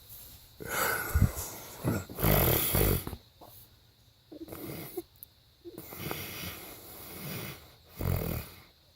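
A man snoring in his sleep: a run of irregular snores and breaths, the loudest with a low fluttering rattle about two and a half seconds in and again near the end.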